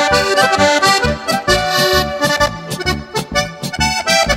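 Instrumental background music: a lively tune of held chords over a steady bass beat.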